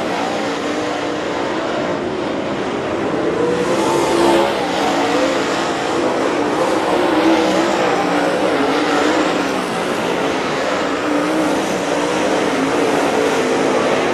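Several dirt late model race cars racing on a dirt oval, their V8 engines running hard together, pitches wavering up and down as the cars throttle through the turns and pass.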